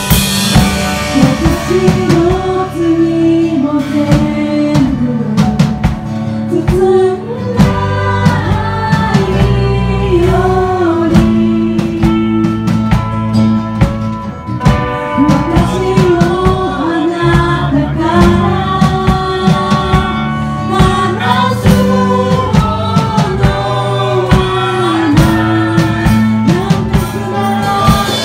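Live worship band: women's voices singing melody and harmony over strummed acoustic guitar and a drum kit.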